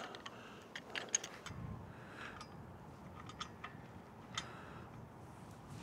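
Faint, scattered metallic clicks and ticks from stainless steel pipe-clamp hardware being handled and tightened onto aluminum tubing.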